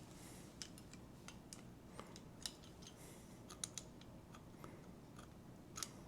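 Faint, irregular metal clicks of channel-lock pliers gripping and working a notched metal piece of a door lock, straining to snap off one notch. The clicks come singly, a few at a time, with the clearest near the end.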